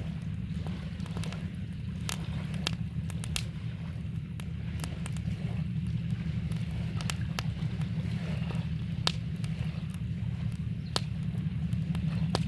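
Campfire crackling, with irregular sharp pops and snaps, over a steady low rush of flowing river water.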